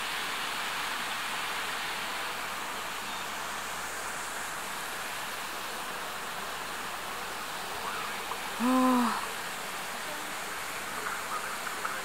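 A mountain stream rushing, a steady even hiss of water. About nine seconds in, a person gives one short hummed tone.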